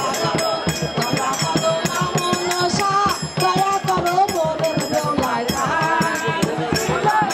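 Folk music with a fast, steady drum beat and rattling percussion under a wavering melody.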